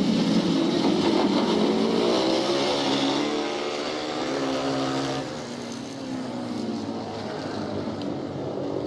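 Ice speedway motorcycles' single-cylinder engines racing, their pitch sliding up and down. The sound drops sharply about five seconds in, and a quieter engine keeps running after that.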